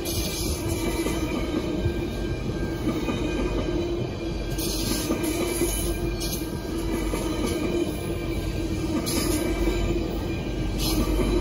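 GO Transit bilevel passenger coaches rolling past, their wheels running steadily on the rails.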